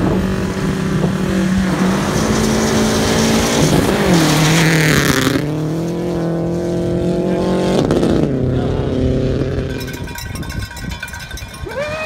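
Rally car engine holding steady revs at the start line, then launching onto the gravel with a hiss of spraying stones about four seconds in. It accelerates away through the gears, with a change near eight seconds, and fades as it drives off.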